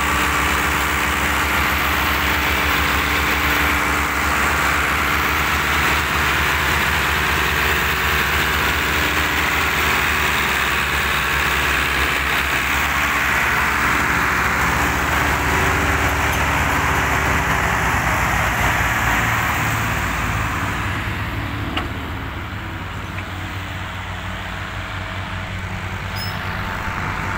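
Diesel tractor engines, a Ford in the lead, running steadily under load as the chained tractors haul a heavily loaded trolley. The engine noise eases off about three-quarters of the way through.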